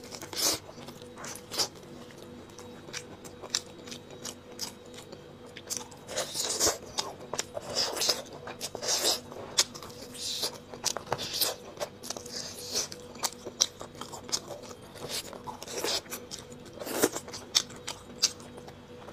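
Close-miked eating sounds: biting and chewing flatbread, then sucking and chewing braised beef bone marrow from the bone sections. Many short wet smacks and clicks come at irregular intervals.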